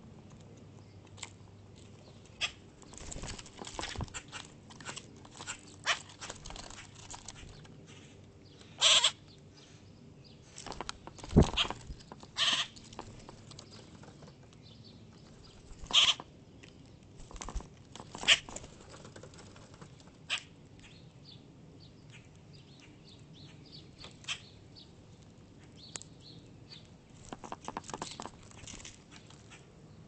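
Common grackle at a hanging seed feeder close to the microphone: irregular pecking taps and clicks on the seed and plastic tray, with louder knocks and wing flutters as it shifts and lands, the strongest knock about eleven seconds in.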